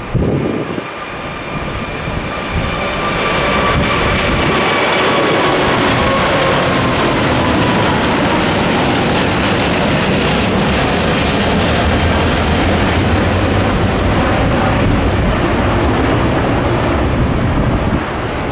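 Airbus A380's four Rolls-Royce Trent 900 turbofan engines climbing out after takeoff: a loud, steady jet roar with a deep rumble underneath. It grows louder a few seconds in, and thin whining tones slowly fall in pitch as the jet passes.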